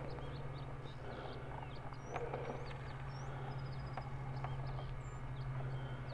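Ambient birdsong: scattered short chirps, quick up-sweeping calls and a rapid trill, over a steady low hum.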